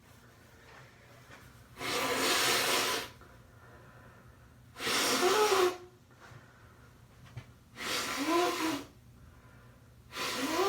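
A person blowing their nose hard into a tissue four times, each blow a burst of air about a second long; the last three honk with a short rising-and-falling tone.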